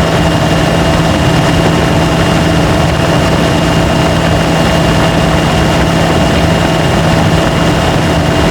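Nissan Patrol's four-cylinder turbodiesel engine running steadily under load on an uphill climb: a loud, even drone with a thin steady high tone over it.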